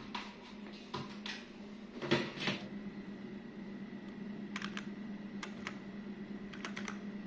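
Computer keyboard keys pressed in short scattered runs of clicks, typing a password at the Windows sign-in screen, over a steady low hum. A louder knock comes about two seconds in.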